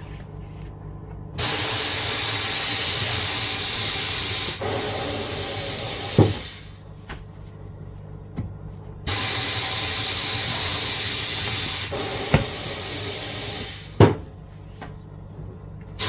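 Pedal-operated pneumatic bead breaker on a tyre-changing machine, cycling twice: each time compressed air hisses steadily for about five seconds, then a sharp clunk comes as the blade presses or releases. A third hiss begins at the very end.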